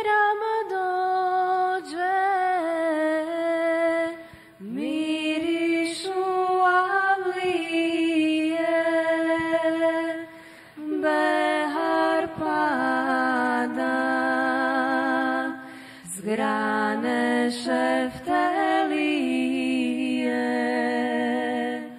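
Bosnian ilahija (Islamic devotional song): a high voice sings long, wavering melismatic phrases with no clear words. There are four phrases, with short breaks between them.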